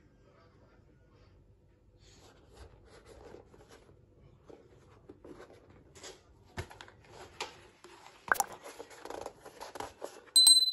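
Rustling, scratching and light knocks as football boots are handled. Near the end there is a sharp click, then a bright bell ding from a subscribe-button overlay, ringing on briefly.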